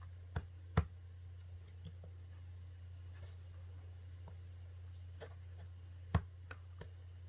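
A few short, sharp clicks and light scraping of a tool and fingers handling an opened tablet casing, the strongest just under a second in and another about six seconds in, over a steady low hum.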